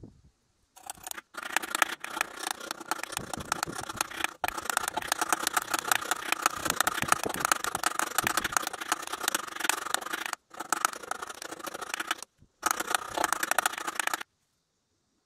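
Small hammer tapping a metal pin set in a wooden block, many quick strikes in a row. The tapping comes in several runs broken by short pauses.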